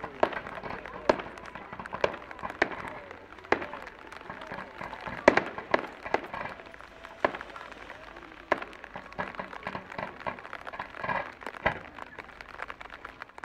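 Fireworks display: aerial shells bursting in a run of sharp bangs at irregular intervals, about a dozen, each followed by a short echo.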